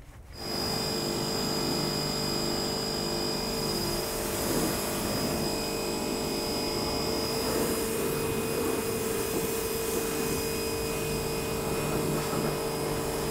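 A steady mechanical drone, a motor or engine running continuously at constant speed with an even hum of several fixed pitches.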